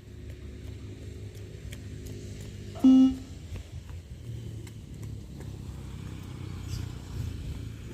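A single short electronic beep of a beep-test (multistage shuttle-run) recording about three seconds in, the signal for the runner to reach the line and turn. Under it, a steady low rumble with faint scattered clicks.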